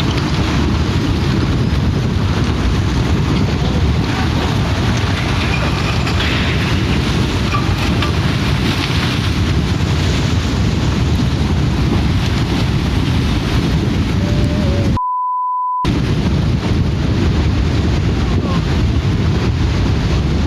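Loud, steady roar of wind and rushing water buffeting the microphone. About three-quarters of the way through it is cut for under a second by a single pure censor bleep.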